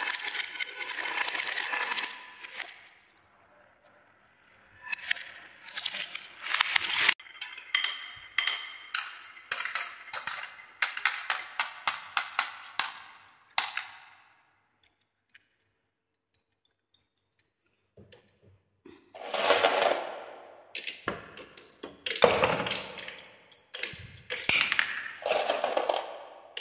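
Marbles rolling and clacking along wooden marble-run tracks: dense clattering in bursts, with a silent gap of a few seconds in the middle.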